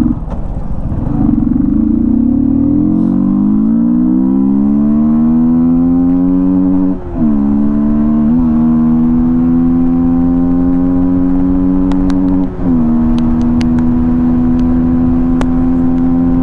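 Yamaha MT-15's single-cylinder engine with an open air filter, revving up as the motorcycle accelerates hard under the rider. The pitch climbs steeply, then holds at high revs, with two brief dips about seven and twelve and a half seconds in as gears are changed.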